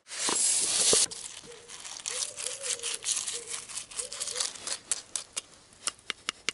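Dry puffed-rice cereal poured from a container into a ceramic bowl, a loud hiss for about a second. Milk is then poured in from a carton with a faint wavering gurgle, and near the end a plastic spoon clicks and scrapes against the bowl as it stirs.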